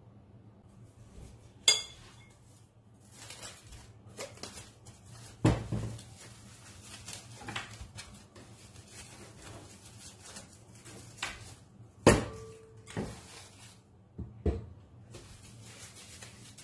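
Glass mixing bowl knocked and clinked on the countertop several times, the loudest knocks about five and twelve seconds in, with rustling and crinkling of plastic cling film pulled from its roll and stretched over the bowl to cover the dough.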